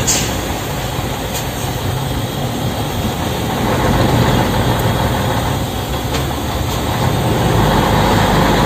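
Scania 113M 320 truck's 11-litre inline-six diesel running under a heavy load, heard from inside the cab. The engine note grows louder about four seconds in and again near the end.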